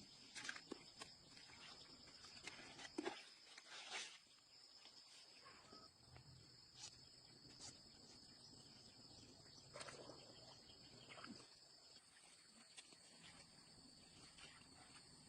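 Near silence: faint outdoor ambience with a steady high-pitched drone and a few soft scattered clicks.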